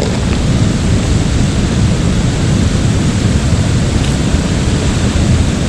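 Steady, loud rushing noise of wind buffeting the camera's microphone over the flow of the river.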